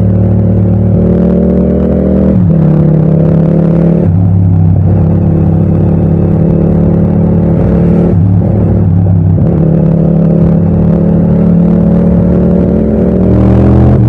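Parallel-twin motorcycle engine running under way, heard from the rider's seat. Its note drops and climbs again several times and rises near the end.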